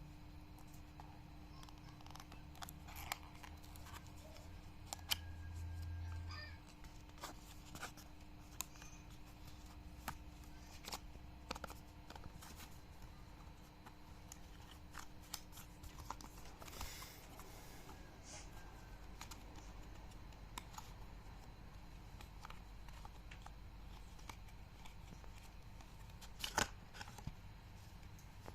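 Hands opening a small AirTag box: scattered quiet clicks and taps of cardboard and plastic being handled, with a short tearing or cutting rasp about 17 seconds in.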